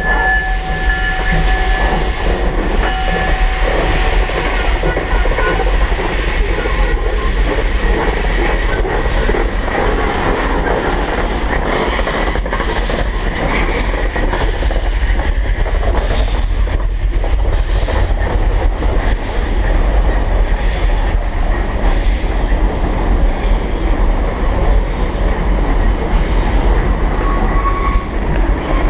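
1915 Baldwin steam locomotive running along the track, a steady rumble and clatter with irregular knocks. Its whistle tails off in the first second and sounds briefly again about three seconds in.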